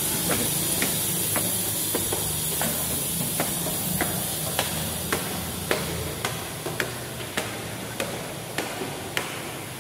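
Footsteps climbing a flight of hard stairs and then walking onto the upper floor, a sharp step roughly every half second, over a steady hiss.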